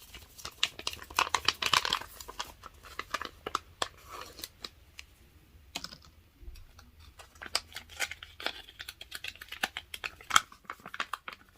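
Sheet face-mask packet being torn open and handled, with irregular crinkling and crackling of the wrapper.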